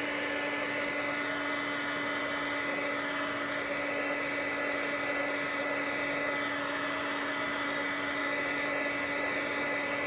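Handheld hot-air blower running steadily to dry freshly sprayed mica and oxide ink on a card: an even rush of air with a constant motor hum and a higher whine.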